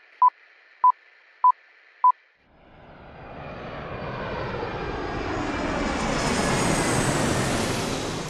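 Film-leader countdown beeps: four short high beeps about half a second apart. Then a jet airplane flyby sound effect swells in from about two and a half seconds in, rising in pitch and growing louder, and starts to fade near the end.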